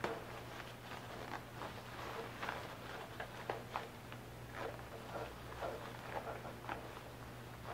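Waterproof jacket fabric rustling, with small irregular clicks and taps as hands work a plastic remote-control receiver and its cables into a pouch inside a pocket.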